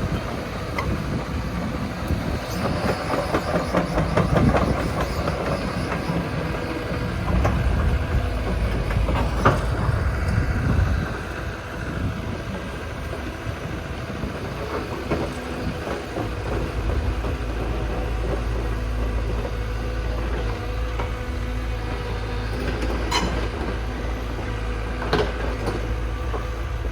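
Diesel engine of heavy earth-moving machinery running, with rattling and a few sharp knocks during rock placement. From about 16 s in it settles into a steady low drone.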